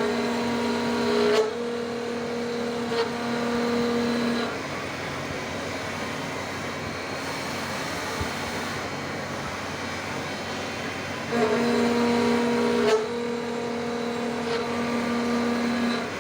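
CNC milling machine with a six-insert carbide high-feed face mill on a long tool holder, cutting S355 steel. A steady pitched hum with overtones sounds twice: from the start to about four and a half seconds in, and again from about eleven and a half seconds to near the end. Between the two, the machine runs on more quietly without the tone.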